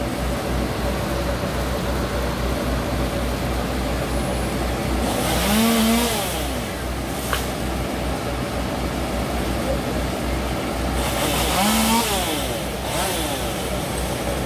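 An engine running steadily with a low pulsing hum, rising twice to a louder rev with a hiss, about six seconds apart, each pitch climbing, holding briefly and falling back.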